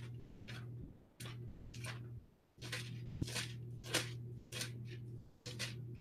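Faint rustling and about a dozen light clicks of hands searching at a desk for a Bible verse, over a low electrical hum that keeps cutting in and out.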